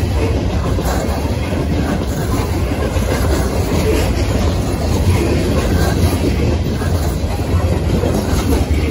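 Coal hopper cars of a freight train rolling past at speed: the steady noise of steel wheels running on rail.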